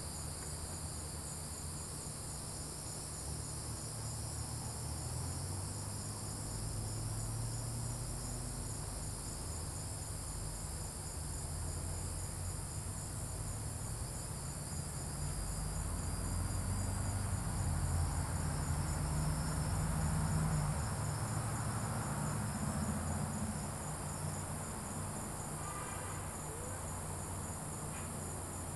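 Night chorus of crickets and other insects trilling steadily at a high pitch, over a low rumble that swells twice and is loudest around eighteen to twenty seconds in.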